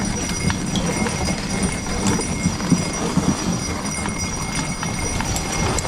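Hoofbeats of a harnessed pair of ponies on a packed snowy track: an irregular run of dull footfalls.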